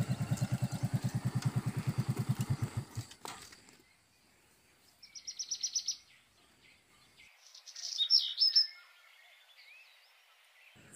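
A motorcycle engine running with a rapid, even pulsing beat that fades away about three seconds in. Then birds chirp: a quick trill about five seconds in and louder calls around eight seconds.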